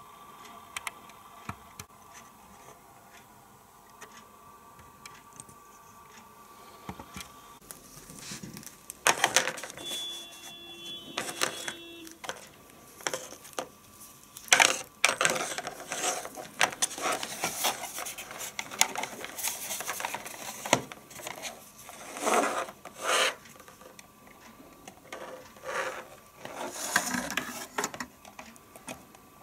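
Router and red Ethernet cable being handled on a wooden desk: irregular rubbing, scraping and light knocks, starting after a quiet stretch of faint hum.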